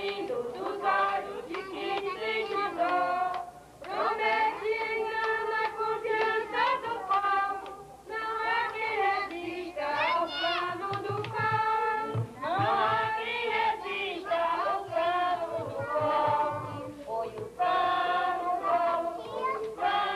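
A group of women and girls singing a song together in Portuguese, in phrases with short breaks between them.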